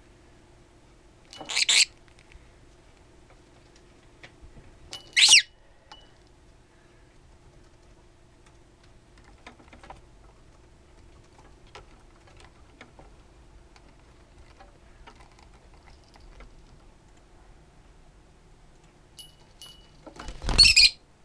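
Lutino lovebird hen giving short, duck-like quacks three times: about a second and a half in, about five seconds in, and near the end, the last one with a low thump. Faint clicks come in between.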